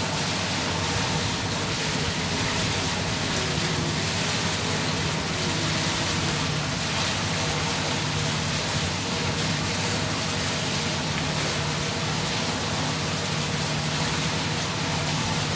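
Moored ship's machinery running: a steady low hum under an even hiss, unchanging throughout.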